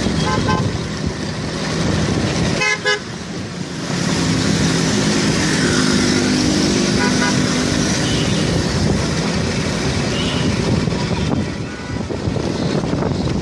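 Road traffic heard while riding: steady engine and rushing noise, with several short vehicle horn toots, including a quick run of beeps about three seconds in.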